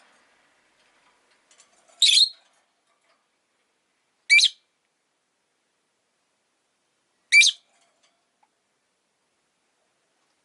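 Rosy-faced lovebird giving three short, shrill chirping calls, about two to three seconds apart, with near silence between them.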